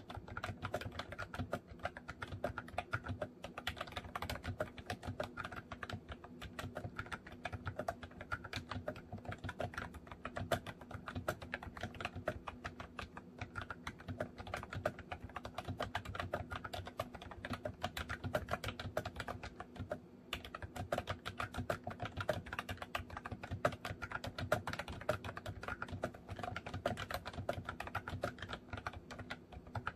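Fast, continuous typing on a MOFii Retro Style Candy keyboard, a dense run of key clicks with a brief pause about two-thirds of the way through.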